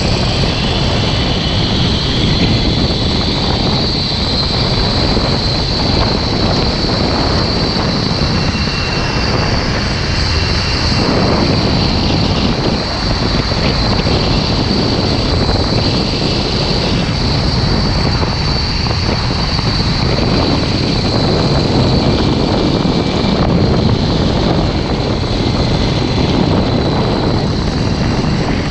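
Zipline trolley running fast down a steel cable: a steady high whine from the pulley wheels over loud wind rushing across the microphone.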